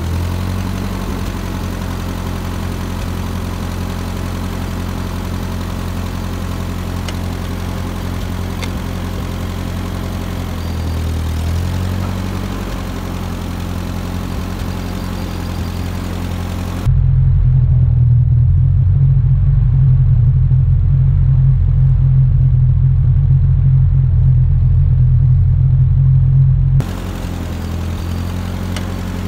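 Ford 8N tractor's four-cylinder flathead petrol engine running steadily. For about ten seconds in the middle it is louder and more muffled, heard from close to the engine.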